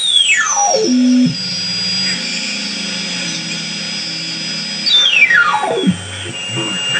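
Shortwave receiver audio from an Elektor software-defined radio being tuned: whistling beat notes that fall steeply in pitch twice as the tuning sweeps across signals, with steady tones between them over a hiss of band noise.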